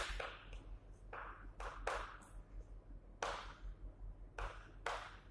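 Chalk writing on a blackboard: a run of short, irregularly spaced scratches and taps as letters are written.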